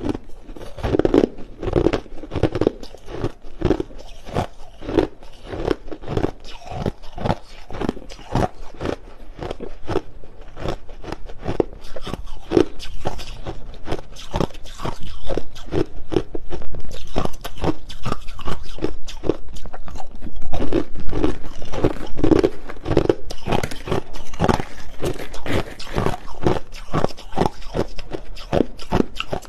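A person biting and chewing hard, clear crushed ice close to the microphone: rapid crunching and cracking with no letup.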